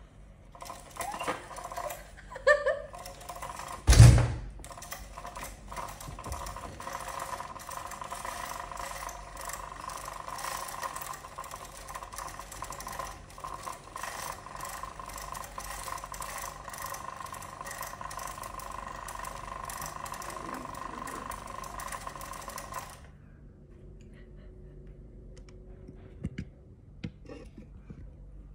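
Arthacat Mariposa electric butterfly cat toy running: its small motor whirs with a fast, even rattle as it spins the butterfly on its wire, then stops suddenly about five seconds before the end. A loud thump comes about four seconds in, just as the whirring starts.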